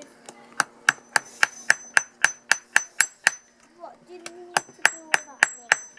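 Hammer blows on red-hot steel laid on a steel anvil block, hand-forging an arrowhead. The strikes come steadily at about three a second, each with a high ring, and break off for about a second in the middle before starting again.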